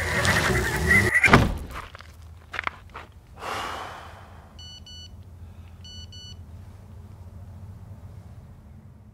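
A loud burst of noise ending in a heavy thud about one and a half seconds in, followed by a few softer knocks. Then come two pairs of short electronic beeps from a Sony Ericsson mobile phone's keys, over a low steady hum.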